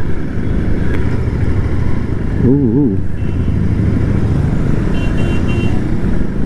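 Royal Enfield Continental GT 650's parallel-twin engine running steadily as the motorcycle is ridden slowly, heard with road and wind noise. A brief warbling tone sounds about two and a half seconds in, and short high beeps come a few times later.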